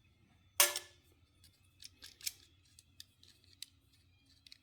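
A sharp metallic clink about half a second in, then a string of lighter clicks: metal washers and a nut being handled and fitted back in order, big washer, small washer, then the nut.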